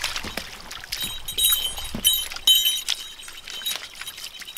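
Metal tags on a Vizsla's collar clinking in short jingles several times as she moves about, with light splashes of her paws in shallow water.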